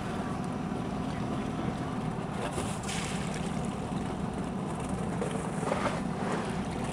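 A boat's engine running steadily with a low drone, with two brief hissing rushes, about three seconds in and again near the end.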